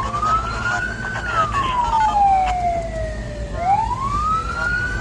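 Ambulance's electronic siren in wail mode, heard from inside the cab. The pitch climbs to its top about a second in, slides slowly down until about three and a half seconds in, then climbs again, over a low engine and road rumble.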